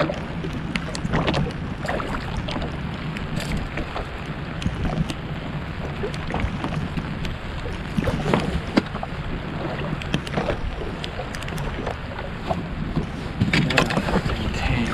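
Steady wind and water noise aboard a small open fishing boat, with scattered clicks and knocks of fish and tackle being handled. The knocks bunch up and grow louder near the end.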